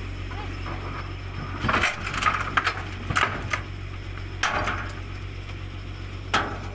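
Sharp metal clanks and rattles from a tipped-over truck's steel body and chains as a crane tow truck pulls it back upright onto its wheels, over a steady low engine hum. A cluster of clanks comes about two seconds in, with single loud knocks later on.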